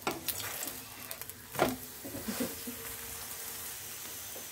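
A stuffed paratha sizzling in oil on a flat tawa as a metal spatula presses it down, with a sharp clink of the spatula on the griddle about one and a half seconds in. A faint steady hum sits under the sizzle in the second half.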